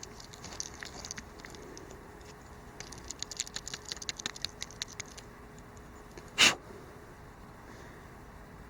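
Swiss Army knife awl scraping and twisting inside a freshly bored hole in a small piece of wood to clear it out: soft, quick scratchy clicks in two spells, then one brief loud sound about six and a half seconds in.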